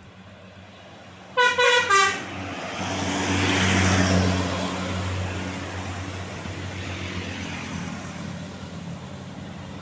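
A tour bus's telolet musical horn plays a quick run of a few notes lasting under a second, then the bus drives past, its engine and tyre noise swelling and slowly fading.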